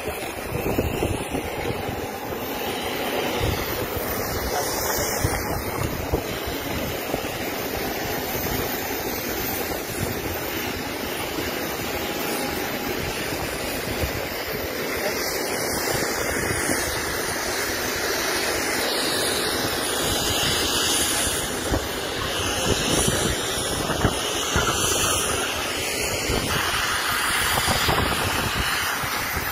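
Steady rushing noise with wind buffeting the microphone throughout.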